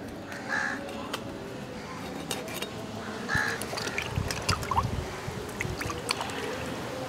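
Small fish being cut against an upright cutting blade with scattered scraping clicks, then splashed and rubbed by hand in a metal bowl of water from about four seconds in. A bird calls twice, about half a second in and again about three and a half seconds in.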